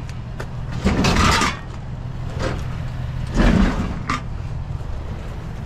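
A sheet-metal kitchen stove being shifted by hand: two scraping shoves, about a second in and again at three and a half seconds, and a sharp clank just after, over a steady low hum.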